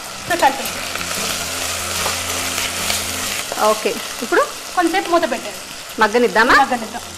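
Chopped onions, curry leaves and potato pieces frying in hot oil in an enamel pot, stirred with a spoon. It is a steady sizzle, heaviest in the first few seconds.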